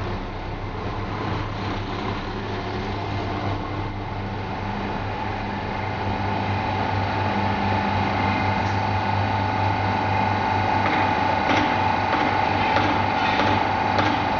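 London Overground Class 172 diesel multiple unit running: a steady low engine hum with a steady whine above it, with a few faint clicks in the second half.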